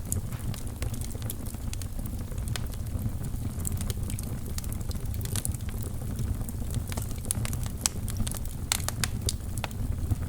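Wood fire crackling in a fireplace: a steady low rumble of the flames with frequent sharp pops and snaps, a cluster of louder pops near the end.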